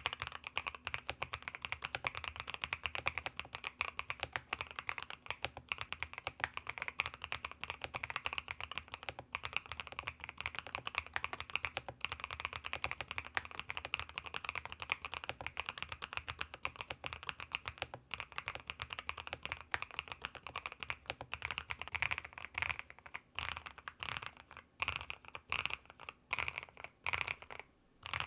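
Continuous fast typing on a PLUX custom mechanical keyboard with factory-lubed linear switches, an FR4 plate and thick Cherry-profile keycaps. Over the last few seconds the keystrokes thin out into separate presses.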